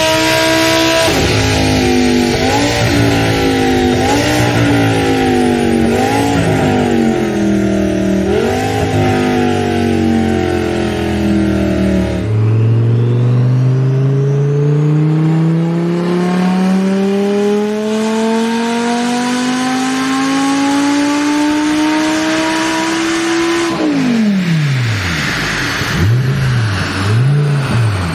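Audi R8 engine revved in several quick blips, then giving way suddenly to a twin-turbo R8 on a chassis dyno making one long pull, its pitch climbing steadily for about eleven seconds. The revs then fall sharply when the throttle closes, and a few quick blips follow near the end.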